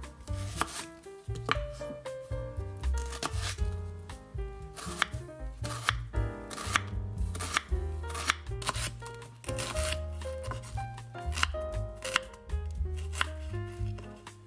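Kitchen knife slicing and chopping an onion on a wooden cutting board: a quick, irregular run of crisp knife strokes through the onion and onto the wood. Light background music plays underneath.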